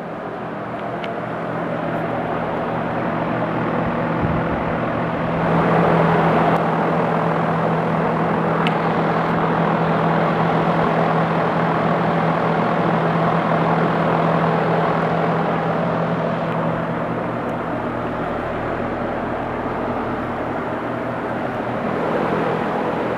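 2007 American Standard heat pump outdoor units running: a steady fan whoosh over a low compressor hum, growing louder about five seconds in.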